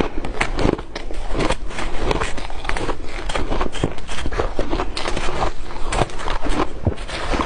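Ice being bitten and chewed: a dense run of crisp crunches and crackles, several a second, without let-up.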